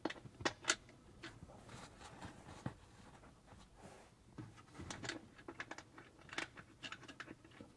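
Faint small metal clicks and light scrapes as a washer and lock nut are fitted by hand onto a stud on a metal mounting plate, with two sharper clicks about half a second in.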